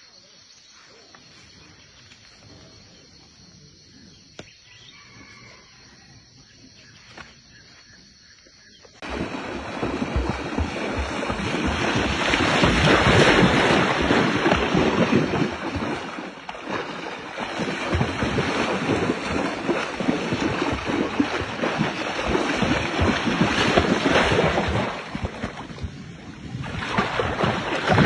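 Quiet at first; then, about a third of the way in, loud splashing and churning water starts suddenly as a baby Asian elephant runs through a pool, kicking up foam, and goes on to the end with a short lull near the end.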